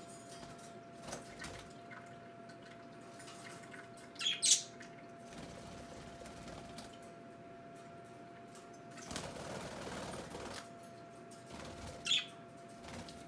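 Budgies: two sharp, loud chirps, one about four seconds in and one near the end, and a rustle of flapping wings lasting about a second and a half in between, over the steady hum of a small electric water fountain's pump.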